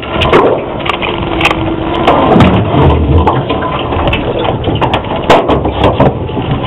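Water splashing and dripping with knocks and clatter against a small aluminium boat while a crab pot is hauled up out of the water, with a heavier rumble of thuds a few seconds in.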